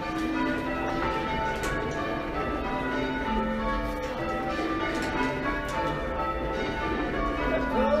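A ring of six church bells rung in change ringing, with a tenor of about 8½ cwt in A flat. The bells strike one after another in an even, unbroken succession, their tones overlapping.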